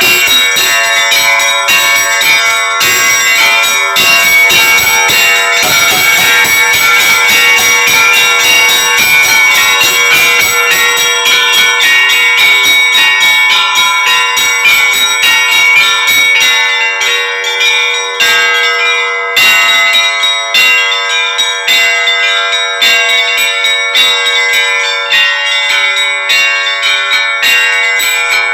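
Russian Orthodox church bells ringing: several bells sound together, with fast strokes over long, steady ringing tones.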